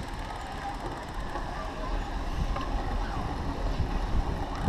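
Wind noise buffeting the microphone of a camera mounted on a moving bicycle, growing a little louder through the stretch, with faint voices in the background.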